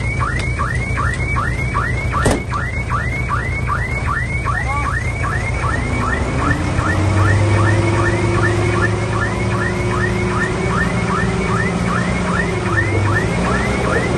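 A rapidly repeating electronic chirping alarm, about three chirps a second, typical of a heavy machine's travel or reversing alarm. It sounds over a diesel engine that revs up about six seconds in and holds there until near the end.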